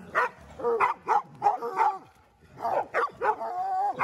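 A pack of hounds, coonhounds among them, barking and yelping in a quick run of short calls, then one long drawn-out bay near the end.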